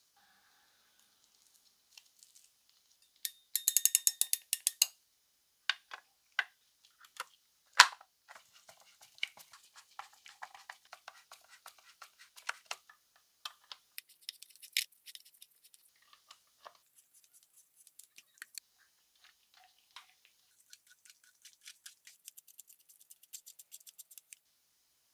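Close-up hand-tool work on the plastic handle of a Keyang PHD-38 demolition hammer drill during reassembly: wire terminals being fitted into the handle, a screwdriver driving a handle screw and an Allen key turning. Two runs of fast fine clicking, one a few seconds in and a longer one near the end, with scattered clicks and taps between; the loudest is a single sharp click about eight seconds in.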